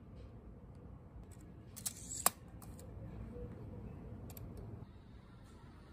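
Handling clicks from a tape measure being repositioned on marble tiles: a few light clicks about two seconds in, ending in one sharp click, over faint low room noise.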